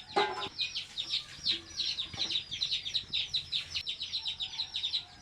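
Chickens peeping without a break, many quick high chirps a second, with a short lower cluck-like call just after the start.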